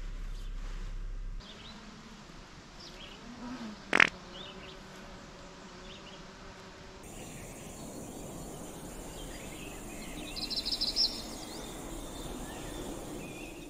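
Outdoor woodland ambience with insects buzzing and scattered short bird chirps, plus a low hum in the first second or so. One sharp knock, the loudest sound, comes about four seconds in, and a quick run of rapid ticks about eleven seconds in.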